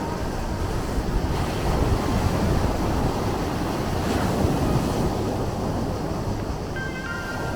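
Sea waves washing and surging, swelling about a second in and again around four seconds in. Near the end a few faint steady tones come in over the surf.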